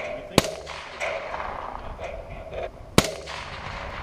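Two sharp rifle shots about two and a half seconds apart.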